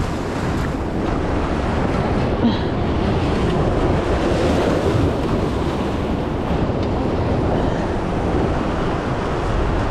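Ocean surf washing against the jetty with steady wind buffeting the microphone.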